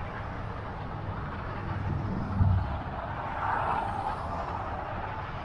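Street traffic noise with a ragged low rumble, heard from a bicycle riding through the city, and one short low thump about two and a half seconds in.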